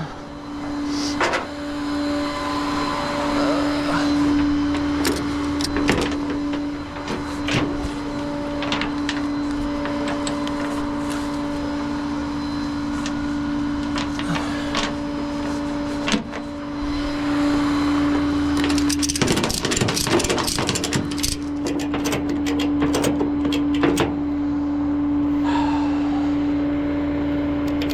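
Tow truck running with a steady, even hum, with scattered clicks and rattles and a short burst of clattering about two thirds of the way through.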